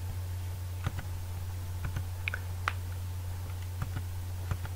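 About ten scattered clicks from computer use, likely mouse and keyboard, irregularly spaced and a few in close pairs, over a steady low hum.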